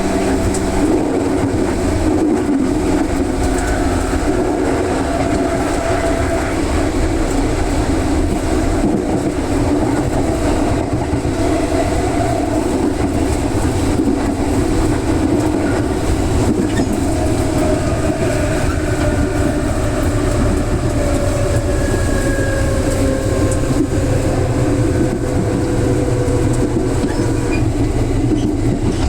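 Electric commuter train running steadily, heard from on board: a continuous low rumble of wheels on rail, with a faint motor whine that drifts slowly in pitch and falls gradually in the second half.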